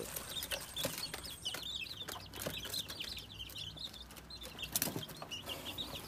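A flock of young parrot beak long tail Aseel chicks, about 25 days old, peeping: many short, high chirps overlapping all the time, with a few sharp clicks among them.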